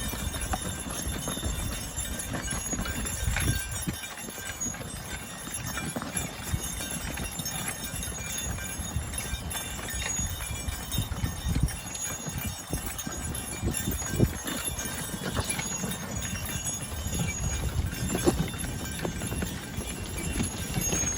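Belgian draft horses walking as they pull a plough through a field: irregular hoof thuds over a steady low rumble.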